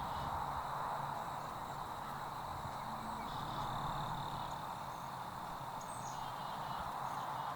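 Steady outdoor ambient hiss with faint, high bird calls over it.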